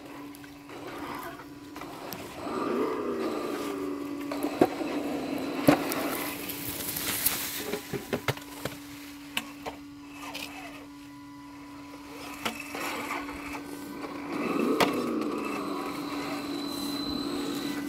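Radio-controlled Axial SCX10 II scale crawler with a Jeep Cherokee body, crawling over rocks. A steady electric motor and gear whine swoops in pitch briefly twice, and the tyres and chassis make sharp knocks and clicks on the stones, most of them in the first half.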